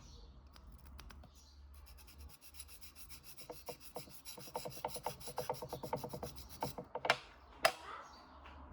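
Small abrasive sharpening stone rubbed against the metal prong of a pole-spear paralyzer tip, in a run of rapid short strokes, several a second. Two louder single strokes follow near the end.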